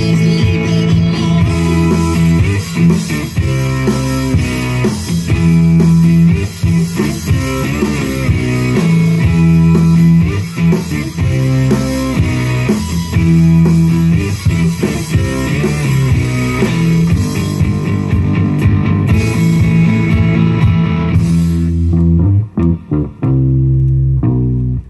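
Rock music with guitar and bass played from a vinyl record on a Numark turntable, heard through the stereo amplifier and bookshelf speakers in the room. About three seconds before the end, the upper parts drop out and mostly the bass line is left.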